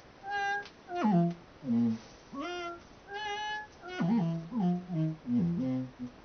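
Electronic tones driven by a 3-axis motion sensor: a run of short pitched notes, some gliding down or up in pitch and others stepping from one pitch to the next, coming quicker and lower in the second half as the sensor is moved.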